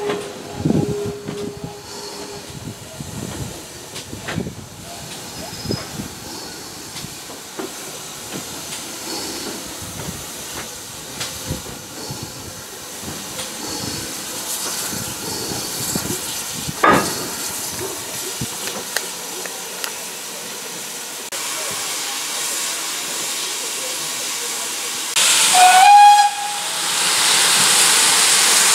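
GWR Small Prairie 2-6-2 tank engine 4555 running slowly, with hissing steam and scattered clanks and knocks. Near the end the steam whistle gives one short blast, followed by a loud, steady hiss of escaping steam.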